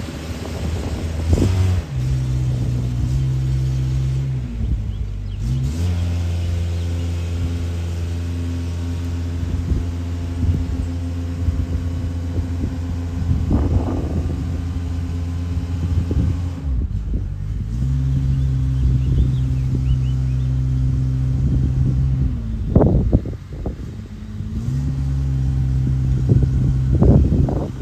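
Heavy diesel lorry engines running steadily as a low hum, their pitch stepping up and down several times as engine speed changes, with a few brief louder bursts of noise.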